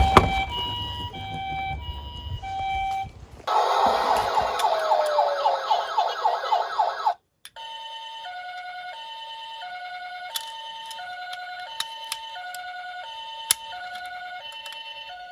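Electronic toy ambulance sirens. A two-tone hi-lo siren alternates between two notes, then gives way to a louder, rapidly warbling siren for about three and a half seconds. After a brief break the two-tone hi-lo siren returns, with a few sharp clicks over it.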